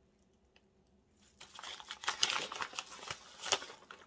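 Plastic crinkling and rustling in irregular bursts, starting about a second in, as a hand in a disposable plastic glove pinches shredded cheese out of its plastic bag and sprinkles it.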